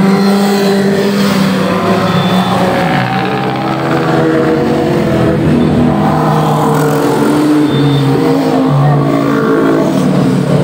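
Motorcycles and a car passing close by in a steady stream. Several engine notes overlap, each rising and falling in pitch as it goes by.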